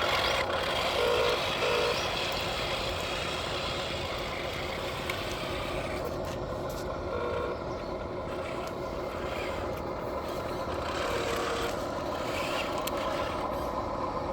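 RC model truck and excavator running steadily with an engine-like drone, with a few short beeps scattered through.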